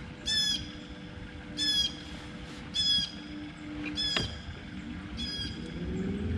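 A bird squawking five times at an even pace, about one harsh call every second and a bit, with a single knock near the fourth call.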